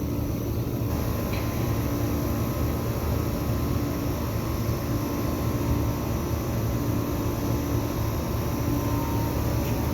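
Outdoor central air conditioner condenser units running: a steady low hum with fan whoosh over it, and a faint tone that fades in and out.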